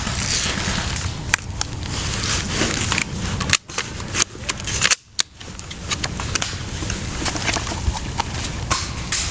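Steady rustling and crunching with scattered sharp cracks and clicks, and two brief drop-outs about three and a half and five seconds in.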